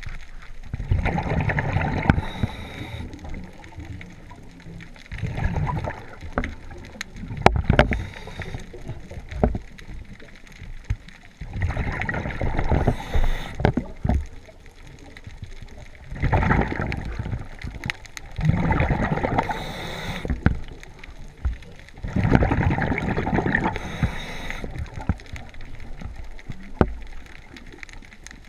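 Scuba diver breathing through a regulator underwater: bursts of exhaled bubbles every three to four seconds, with brief hisses between some of them.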